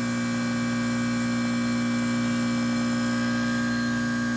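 Trane XR13 heat pump's outdoor unit running in a forced defrost cycle with the outdoor fan stopped: the compressor gives a steady electrical hum.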